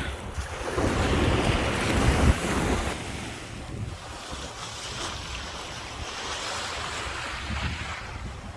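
Ocean surf washing in, with wind buffeting the microphone; the wind rumble is strongest in the first three seconds, then eases to a steadier wash of surf.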